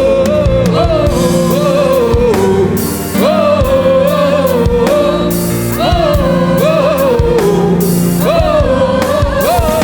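Gospel worship song: a voice sings a repeated wordless 'eh eh eh' chant in short gliding phrases over sustained keyboard and bass, with drum beats.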